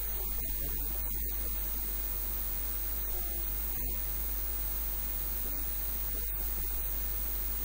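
Steady low electrical mains hum with a faint hiss over it, the background noise of the microphone and recording line. It holds at one level throughout, and no speech comes through it.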